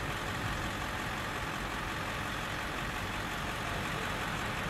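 McDonnell Douglas MD-11 tri-jet on short final approach, its three turbofan engines at approach power making a steady rumble and hiss.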